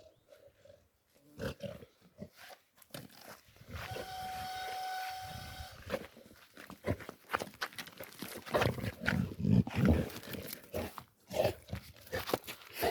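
Cats: one long, steady cry a few seconds in, followed by a run of rustling and scuffling noises.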